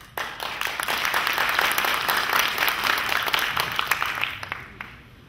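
Audience applauding, starting suddenly and fading away after about four and a half seconds.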